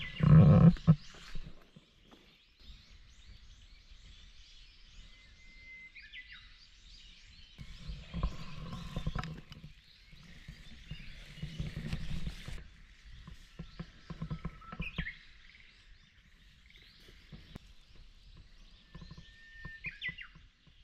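Bursts of rustling and knocking as a pop-up shelter tent and camp cot are handled, with a few short bird whistles in the background.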